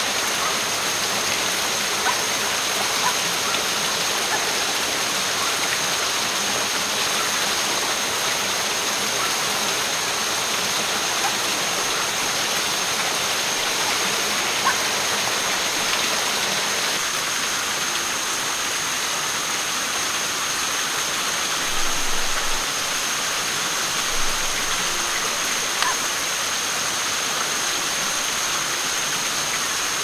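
Rainforest stream rushing steadily over rocks and a small cascade, with a few faint crackles from a campfire.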